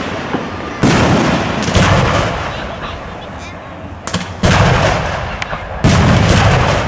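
Spherical aerial firework shells bursting: four booms, about one, two, four and a half and six seconds in, each trailing off in a long rolling echo, with a few short crackles just before the third.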